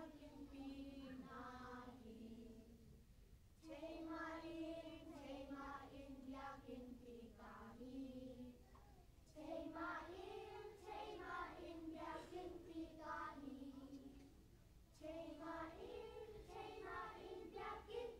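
A group of children singing together, in sung phrases of several seconds broken by three short pauses.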